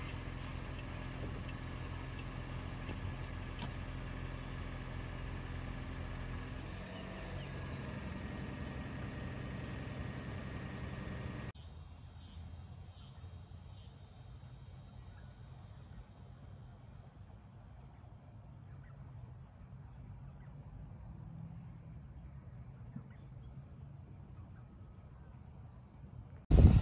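Insects trill steadily in late-summer grass over a low, steady hum. The hum stops at a cut about 11 seconds in, and the insects carry on more quietly after that.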